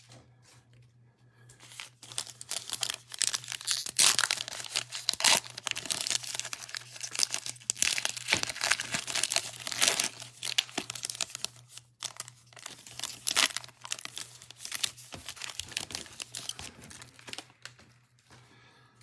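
Foil wrapper of a trading-card pack being torn open and crinkled by hand, in irregular crackling bursts that start after a second or two and thin out near the end.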